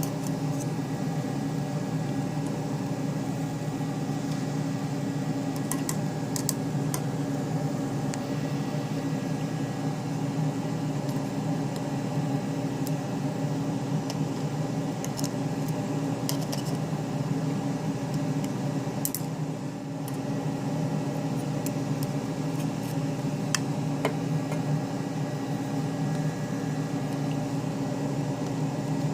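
Small CNC router's spindle motor running steadily, a constant hum, with scattered faint sharp ticks.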